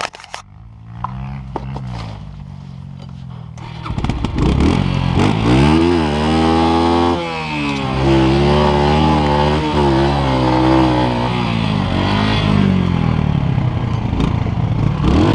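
Dirt bike engine running low, then revving hard from about four seconds in, its pitch climbing and dropping again and again as it is ridden under load, heard close up from the rider's helmet.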